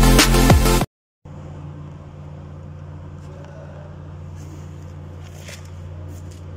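Electronic intro music cuts off about a second in. After a brief gap, a steady low machine hum runs on, with a few faint ticks.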